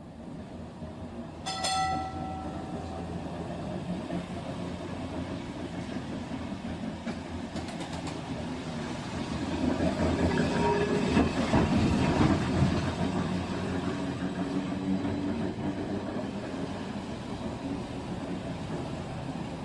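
Tram running on rails, a steady rumbling ride noise that grows louder in the middle and then eases off. Near the start comes a short pitched warning note.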